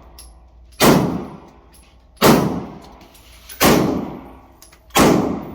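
Four gunshots at a gun range, evenly spaced about a second and a half apart, each a sharp bang followed by an echoing tail.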